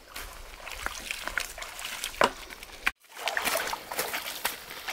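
Shallow water splashing and sloshing with scattered sharp knocks and clicks, and an abrupt cut about three seconds in, after which the splashing is denser.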